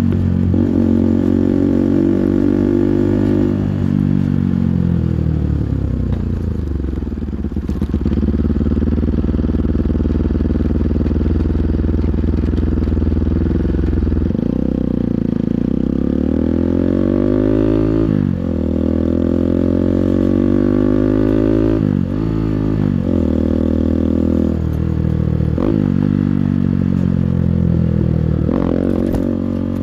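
A 200cc engine held at high revs for about three seconds, then falling away to a low idle-like rumble. Later it is revved up again and again, the pitch climbing and dropping every three to four seconds.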